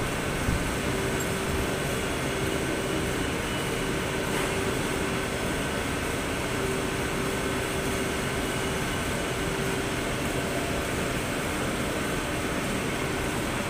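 Steady hum and hiss of factory machinery and ventilation in a large workshop hall, with a faint constant whine, and one light knock about half a second in.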